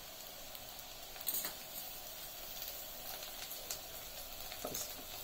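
Onions and tempering frying in hot oil in a pan: a steady sizzle with scattered small crackles.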